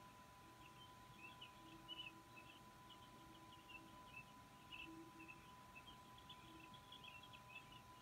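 Faint, high, rapid peeping of downy eagle chicks in the nest, short chirps coming in irregular clusters throughout, over a steady faint electronic hum.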